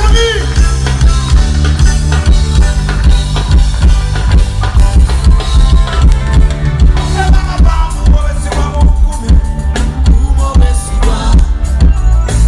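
Loud music with a heavy bass line and a steady drum beat, without vocals.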